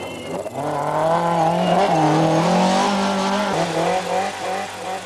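BMW M3 rally car's four-cylinder engine revving hard under full throttle, its pitch climbing about half a second in and dipping briefly twice as the driver lifts or shifts.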